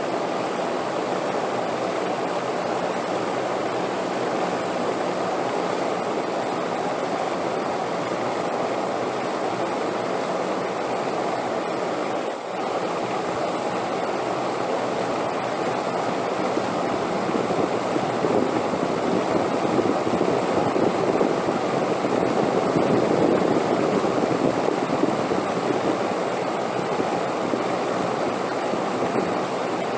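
Wind blowing steadily as a dense, rushing hiss. It swells louder for several seconds past the middle, then eases back.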